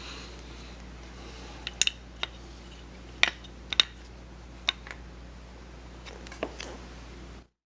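About eight irregular, sharp clicks and taps over a steady low hum. The sound cuts off abruptly near the end.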